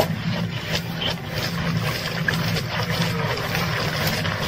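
A steady low motor hum, with short scratchy scraping sounds over it from a coconut being husked by hand and its white flesh grated out of the half shell.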